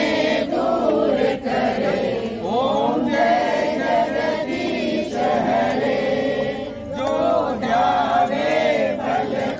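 A group of women singing a devotional aarti hymn together in unison.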